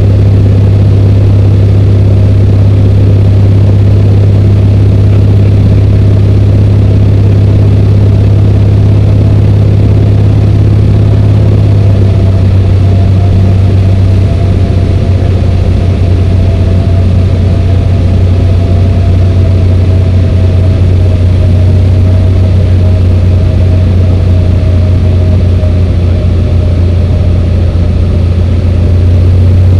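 Single-engine light aircraft's piston engine and propeller droning steadily, heard from inside the cockpit. About twelve seconds in, the deep hum drops slightly in pitch.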